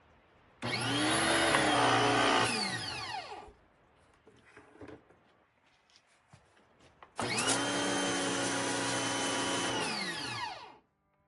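AchiForce 3000 PSI electric pressure washer run twice, for about three seconds each time. The motor and pump start at once when the trigger is squeezed, and the whine falls away in pitch as they wind down when the trigger is released.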